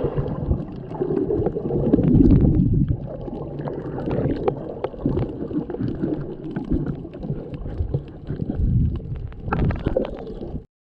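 Muffled churning and gurgling of water close to the microphone, a dense low rumble with small clicks scattered through it. It cuts off suddenly near the end.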